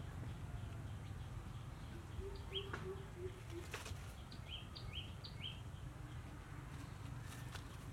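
Wild birds calling: a series of five or six short, high chirps in the middle, with a lower run of short notes just before them. Beneath them runs a steady low outdoor rumble, and there are a couple of brief clicks.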